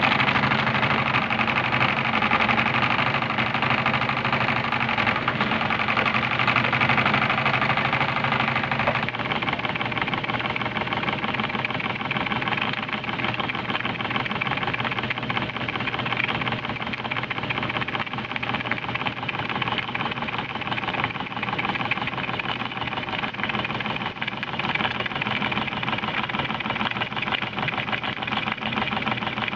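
Jensen Twin-25 twin-cylinder model marine steam engine running on steam, chugging along at low speed with a steady, rapid mechanical rhythm; its tone changes about nine seconds in.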